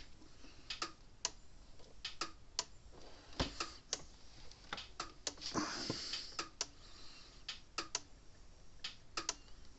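Sharp clicks and ticks at uneven spacing, sometimes two or three close together, from the repaired Dare Enforcer DE4000 fence charger under test, working again. There is a short rustle about halfway.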